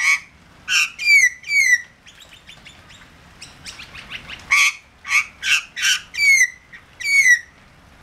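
Australian magpie calling in two loud phrases, each a few short harsh notes followed by two sharply falling notes, with softer chattering between the phrases.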